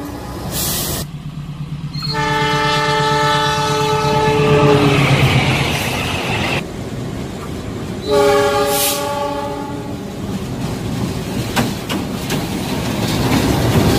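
Diesel locomotive horns: a long chord-like blast about two seconds in lasting some three seconds, and a second shorter blast about eight seconds in, over the rumble and wheel clatter of a passing train.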